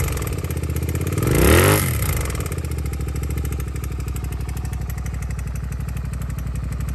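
Suzuki SV400's V-twin engine with an aftermarket muffler, revved once about a second and a half in, the pitch rising and falling back, then idling steadily.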